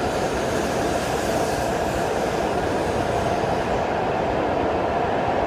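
Hokuriku Shinkansen bullet train departing, its cars rolling past close by as it gathers speed: a steady rush of running and wheel noise, with the high hiss easing about four seconds in.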